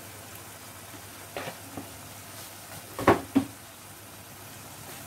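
Onion-and-cashew masala paste sizzling steadily in oil in a wok, being fried until its raw smell goes, with a few short clatters, the loudest about three seconds in.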